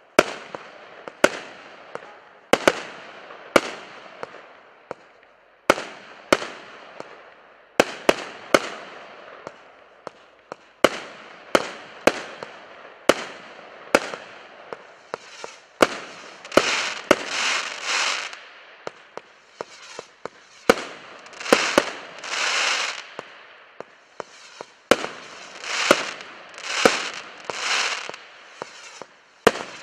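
'The Legend' compound firework cake firing shot after shot, about one sharp bang a second as each tube launches a star burst. From about halfway, the bangs come with longer noisy bursts lasting about half a second each.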